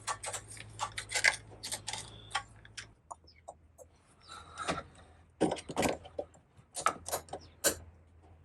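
Irregular sharp clicks and light metallic clatter of hand tools and small parts being handled, thick in the first three seconds and sparser after, over a faint low hum.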